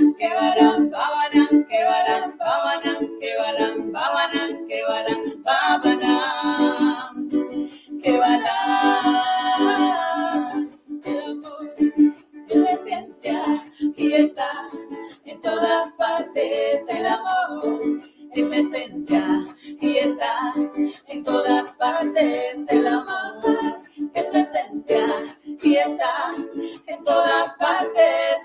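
Two women singing together to a strummed ukulele, with long held notes about six and nine seconds in.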